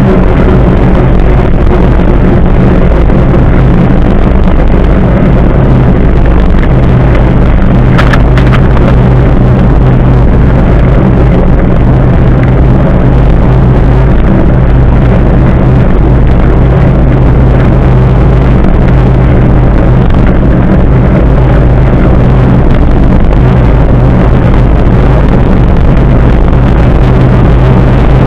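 Loud, steady wind buffeting and tyre rumble on a bicycle-mounted camera's microphone while riding on asphalt, with one brief sharp click about eight seconds in.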